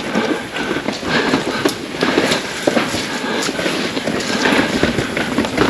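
Pivot Firebird 29 mountain bike ridden along a rough trail: tyres rolling over dirt and rock with a steady rush, and many quick clicks and knocks from the bike rattling over the bumps.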